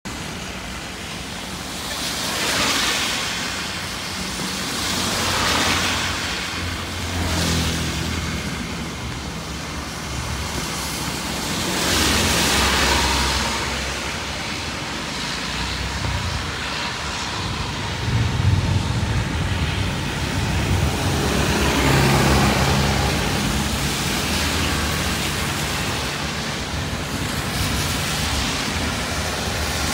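Cars and motorbikes passing one at a time on a rain-wet road, each swelling and fading over a few seconds with tyre hiss off the wet asphalt. Some passes carry a low engine hum. Underneath is the steady hiss of light rain.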